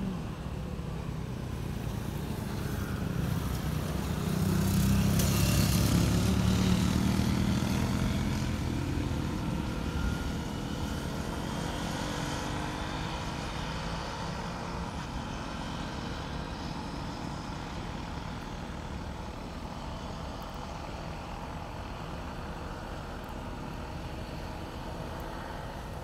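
A road vehicle passing by: its low engine rumble with a hiss grows over a few seconds, is loudest about five to eight seconds in, then fades away, leaving steady outdoor background noise.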